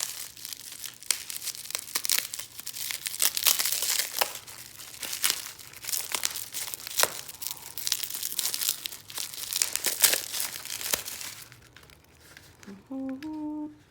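Packaging being unwrapped by hand: a dense, irregular run of crackles and rustles that stops about eleven seconds in.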